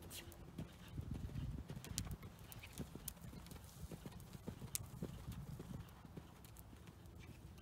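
Hoofbeats of a ridden pony moving around a sand arena: a quick, irregular run of dull thuds, loudest in the first couple of seconds.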